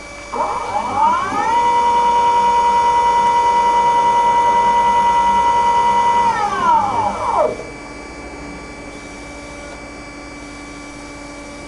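Drive of an MEP Shark 332 NC Evo automatic bandsaw's shuttle feed vise, indexing the bar stock forward: an electric whine that rises in pitch as the vise speeds up, holds steady for about five seconds, then falls away as it stops. A faint steady machine hum runs underneath.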